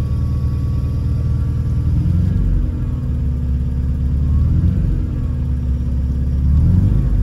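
K-swapped Honda Civic's four-cylinder engine idling, heard from inside the cabin, with a few brief, light rises in engine speed.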